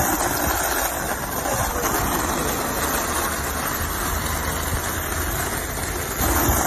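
Steady road traffic noise: vehicle engines running and a constant low rumble, getting a little louder about six seconds in.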